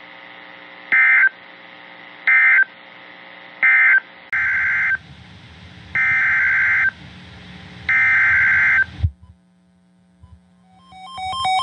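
Emergency Alert System SAME digital data tones: three short bursts of the end-of-message code, then three longer bursts of the header that opens the next alert, all at the same pitch with a faint steady hum beneath.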